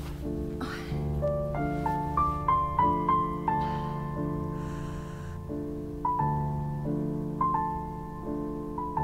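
Soundtrack piano music: sustained low chords under a slow rising run of single notes, then a few separate higher notes struck about once every second and a half near the end.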